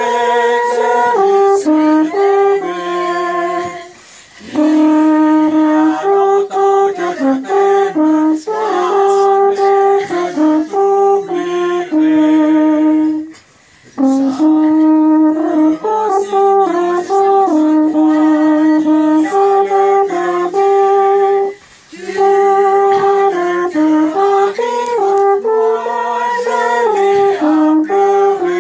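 Alphorn played solo: a slow melody of held and moving notes in long phrases, with short pauses for breath about four seconds in, about halfway through, and about three quarters of the way through.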